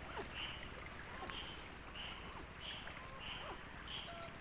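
Forest ambience: a short animal call repeats about twice a second over a steady high-pitched tone, with faint scattered chirps between.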